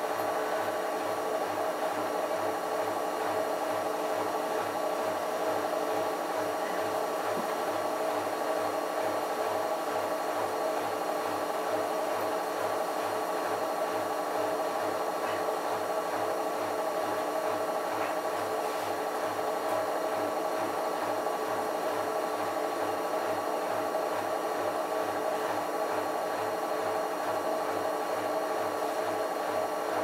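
Bosch front-loading washing machine running a rinse cycle: a steady motor hum over a faint, evenly repeating low throb.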